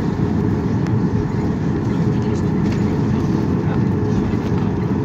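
Cabin noise of a Boeing 737-800 taxiing: a steady low rumble from its CFM56 turbofan engines at taxi power and the wheels rolling over the taxiway.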